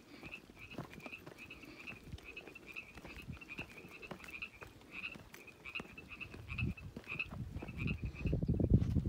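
A chorus of frogs calling near the creek: many short croaks in quick succession, one overlapping another, that fade out near the end. A low rumbling noise builds over the last couple of seconds and grows louder than the frogs.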